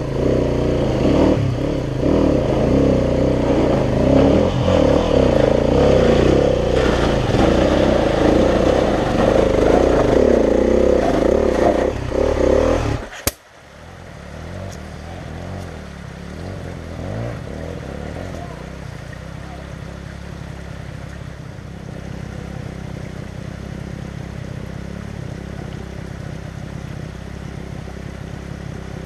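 Dirt bike engine revving hard and unevenly as the bike is pushed and ridden up a steep muddy climb. It cuts out abruptly about thirteen seconds in, and after that an engine runs quietly and steadily.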